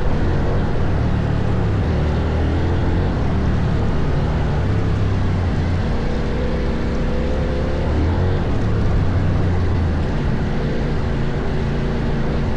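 CFMOTO Ibex 800 motorcycle's parallel-twin engine running while riding off-road, its note shifting up and down every few seconds with the throttle, over a steady rushing noise.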